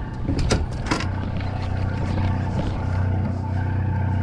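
Party boat's engine running with a steady low drone, with three sharp knocks within the first second.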